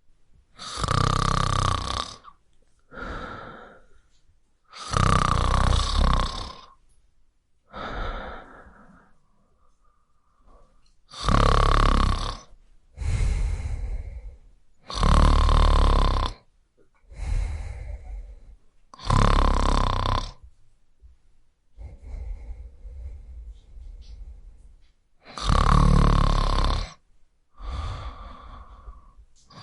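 A person snoring: six loud, rasping snores a few seconds apart, each followed by a softer, shorter breath sound, with a longer quiet pause about two-thirds of the way through.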